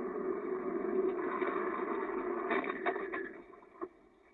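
Steady road and engine noise inside a moving car, with a few sharp clicks about two and a half to three seconds in, then it drops away abruptly.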